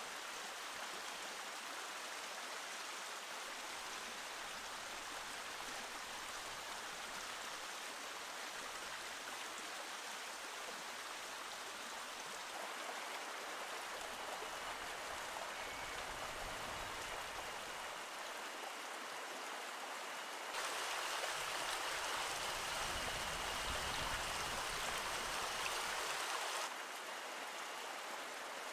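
Small rocky stream running, a steady rush of water. It grows louder for about six seconds in the second half, then drops back.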